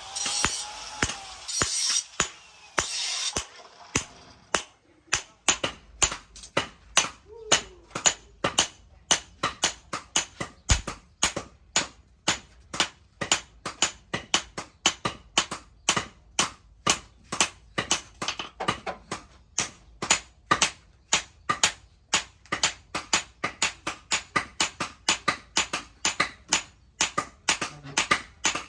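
Hammer striking steel on an anvil in steady forging blows, about two to three a second, starting around five seconds in. Before that, a harsh rasping noise comes in short spells.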